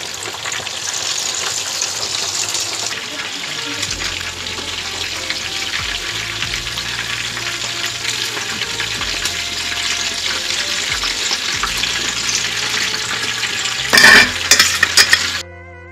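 Bangda (Indian mackerel) shallow-frying in hot oil in a pan: a steady, dense sizzle and crackle of bubbling oil, while the fish is turned with a wooden spatula and a steel turner. A short burst of loud, sharp crackling comes near the end, and then the sound cuts off suddenly.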